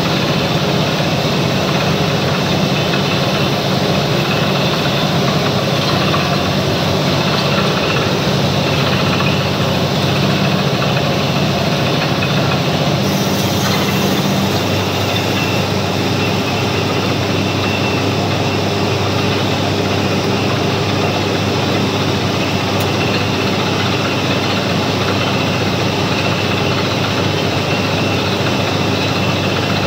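Truck-mounted borewell drilling rig running steadily at a heavy engine note. About 13 seconds in there is a brief rush of hiss, and after it the engine settles to a lower note.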